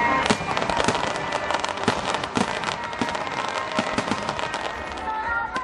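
A fireworks display: shells bursting into crackling stars, a dense run of sharp pops and crackles. Music plays faintly beneath and comes up louder near the end.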